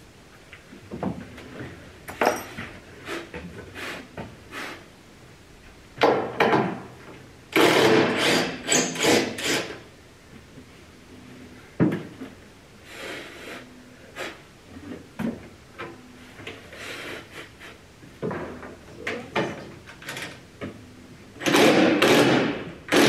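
Knocking and scraping as a large plastic water tank is shoved and worked against the wooden framing of a boat's locker, in scattered bursts with the longest stretch about a third of the way in and another near the end.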